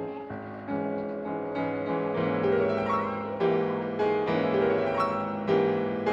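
Background piano music: a slow run of struck notes, each fading after it sounds.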